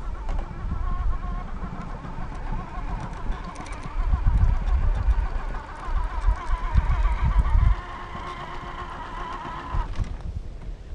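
Traxxas TRX-4 RC crawler's electric motor and gearbox whining as it drives, with a slightly warbling pitch, stopping abruptly about ten seconds in. A low rumble comes in the middle stretch.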